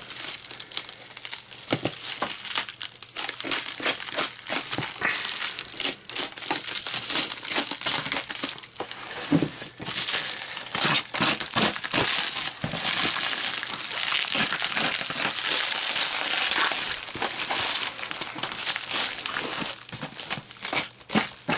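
Plastic stretch wrap and packing tape being cut and torn off a cardboard parcel: continuous crinkling and crackling with quick rips, getting denser and louder about halfway through.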